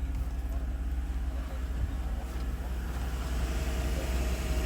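A 2012 Chevy Avalanche's 5.3-litre V8 idling with a steady low rumble, with a broader hiss growing louder about three seconds in.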